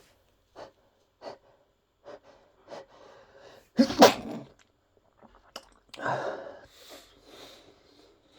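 A person with a cold sneezing: several short breaths build up, a loud sneeze breaks about four seconds in, and a second, softer burst follows about two seconds later.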